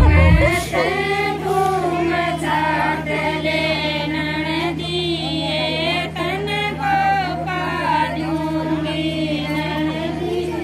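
A group of women singing a Haryanvi folk song together, their voices holding long notes that rise and fall. A steady low hum runs underneath.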